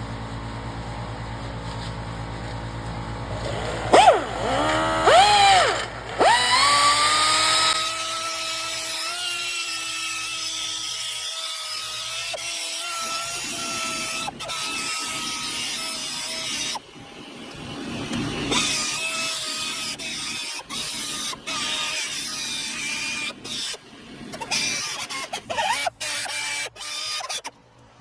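An electric power tool's motor revving up and down in pitch several times, then running at a steady speed; later the sound turns irregular, broken by many sudden cuts.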